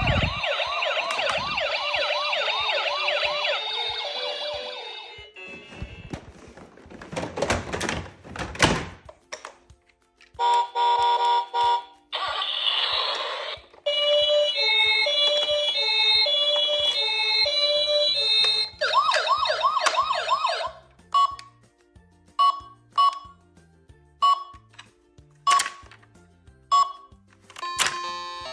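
Toy ambulance and police car sirens sounding one after another: fast electronic wails, a pulsing tone, a short tinkly tune, and a run of short beeps near the end.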